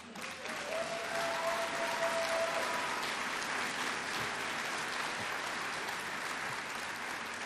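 Audience applauding steadily, slowly tapering off, with one long held cheer over it in the first few seconds.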